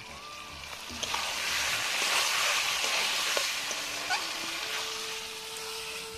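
Chicken pieces and spice paste sizzling in hot oil in a pan as they are stirred and fried down for chicken kosha, with a few clicks and scrapes of the spoon against the pan. The sizzle swells about a second in and eases off near the end.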